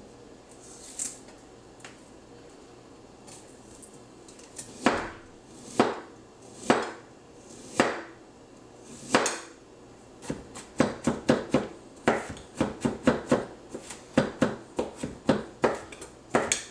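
Kitchen knife chopping garlic cloves on a cutting board: a few separate knocks about a second apart as the cloves are sliced, then a quicker run of chops, several a second, as the garlic is minced.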